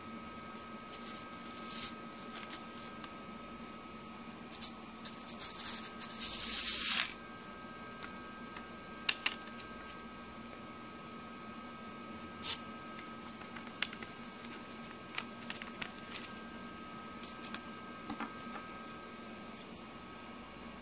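Small gold flakes and nuggets poured off a sheet of paper into a plastic scale tray: a brief hissing rattle that builds and stops abruptly, among paper rustles, followed by a few sharp taps and lighter ticks.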